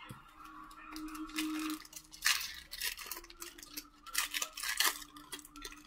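Trading cards being handled: short spells of rustling and sliding scrapes with a few light clicks.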